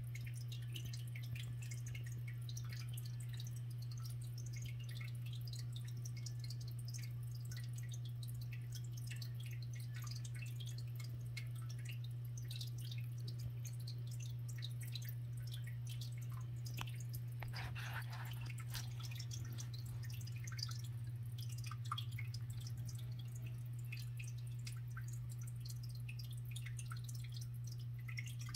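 A steady low hum with scattered faint drip-like ticks, and a brief hiss a little past the middle.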